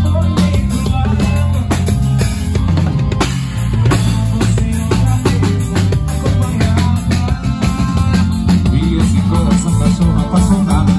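Live band playing: a drum kit keeping a steady beat under a heavy electric bass line, with accordion in the mix.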